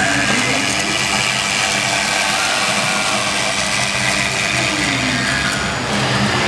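HG-1325 CNC router running, its spindle turning a long end mill through a polyfoam block: a steady machine drone, with a lower tone that glides up and down now and then.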